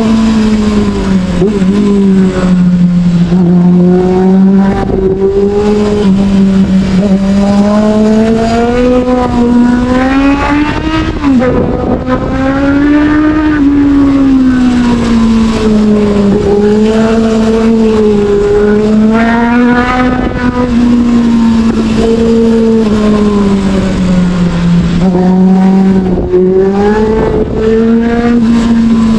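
Sportbike engine running at moderate revs under light throttle, its pitch rising and falling as the throttle opens and closes, climbing briefly about ten seconds in and again about twenty seconds in before settling back, with a steady rush of wind noise underneath.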